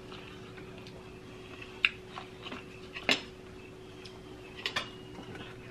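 Eating sounds at a table: a few short, scattered clicks and smacks of chewing and of food and cutlery against plates, the loudest about three seconds in, over a faint steady hum.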